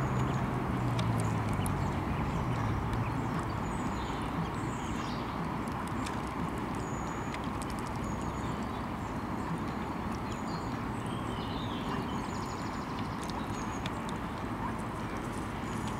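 Mallard ducklings peeping, with short high chirps scattered through, over a steady background hiss, while the hen and ducklings feed at the water's edge.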